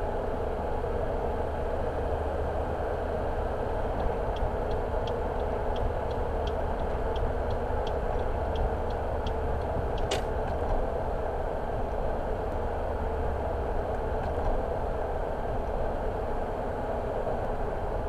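A car driving, heard inside the cabin as steady road and engine noise. About four seconds in, a turn indicator starts ticking about three times a second for some five seconds, followed by one sharp click.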